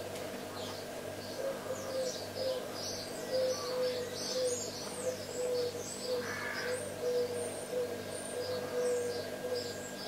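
Small birds chirping and twittering in quick high calls, over a run of short, low notes repeated about twice a second and a steady low hum.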